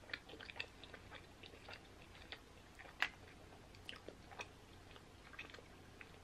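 Close-miked mouth sounds of chewing animal-style fries: soft wet smacks and small clicks. There is one sharper click about three seconds in.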